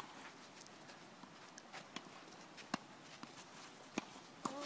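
A few sharp, faint knocks at irregular intervals over a low hiss: tennis balls being struck or bouncing on a clay court.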